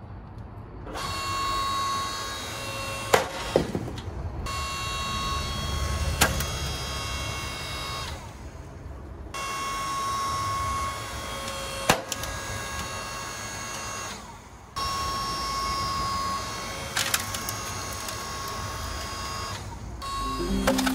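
Electric log splitter running under load, its motor and hydraulic pump giving a steady whine that breaks off briefly three times. A large firewood round gives sharp cracks and splintering as the wedge forces it apart.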